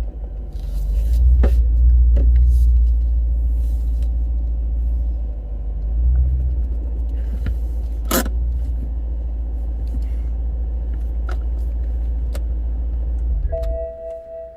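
Supercharged BMW E92 M3's V8 engine running with a steady low rumble, with a sharp click about eight seconds in; the engine stops about a second before the end, leaving two faint steady tones.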